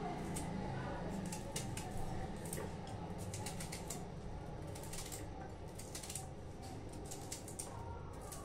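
Kitchen knife slicing rings off a raw bitter gourd (karela) held in the hand, a series of short crisp crunches, one or a few with each slice.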